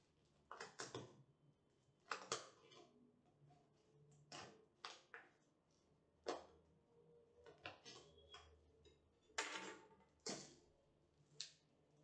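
A knife cutting open a plastic-wrapped parcel: short, quiet crackles and scrapes of plastic packaging as the blade slices and the wrap is pulled apart.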